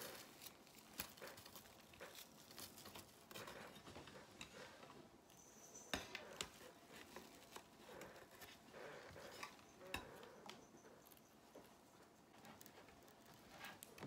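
Faint rustling and crinkling of plastic decorative mesh being looped and scrunched around a wire wreath frame, with scattered soft clicks and taps; a sharper click comes about six seconds in and another about ten seconds in.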